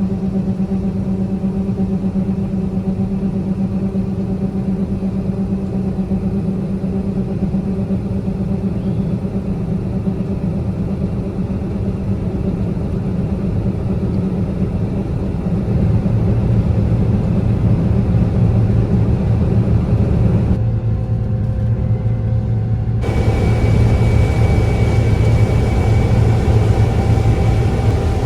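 Heavy vehicle engine running steadily. It settles to a lower, deeper hum about halfway through, and the sound changes abruptly twice near the end.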